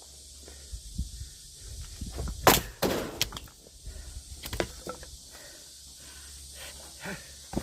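Sharp wooden knocks and cracks of firewood being split and handled with an axe. The loudest strike comes about two and a half seconds in, with a second just after it and a few lighter knocks later.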